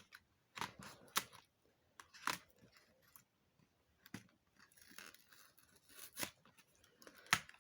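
An advent calendar window and the small packet inside it being opened by hand: scattered sharp clicks and faint rustling of packaging.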